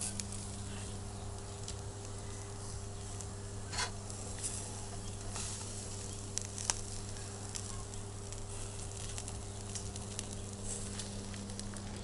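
Shashlik skewers of fatty neck meat sizzling over hot coals, with scattered sharp crackles and pops, over a steady low hum.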